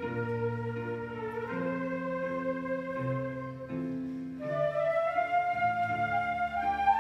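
Flute ensemble playing a piece in parts: a melody line moving in steps over held harmony notes, with a low sustained bass part underneath.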